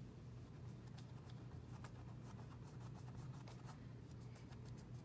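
Faint scratchy strokes of acrylic paint being worked onto a canvas, a quick irregular run of light brushing and scraping sounds that starts about half a second in, over a steady low hum.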